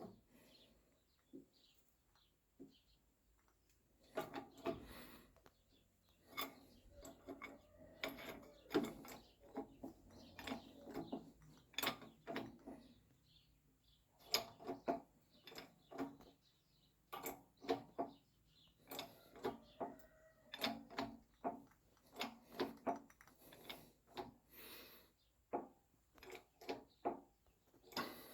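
A quiet, irregular series of knocks and clicks, some with a short ring after them.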